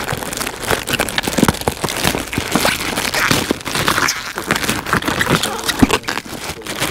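Plastic packaging crinkling and rustling in quick irregular crackles as an accessory bag is handled and opened.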